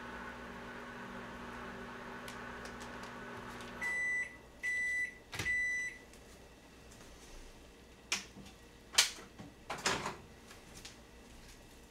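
Microwave oven running with a steady hum that stops about four seconds in, followed by three beeps marking the end of its heating cycle. A sharp click follows, then several knocks near the end.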